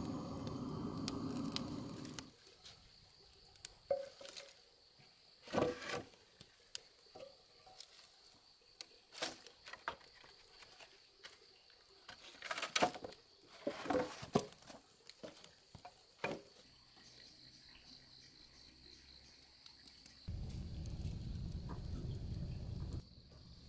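A steady high insect chirr runs throughout. Over it come scattered sharp knocks and clatter at irregular intervals, and two spells of low rumbling noise, in the first two seconds and again near the end.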